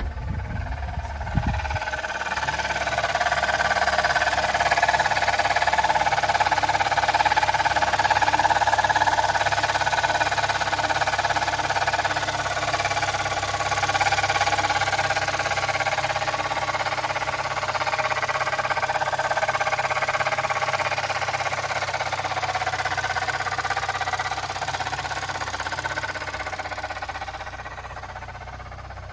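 Suzuki Jimny engine running with an abnormal noise that came on suddenly. The sound is continuous, swells over the first several seconds and eases off toward the end.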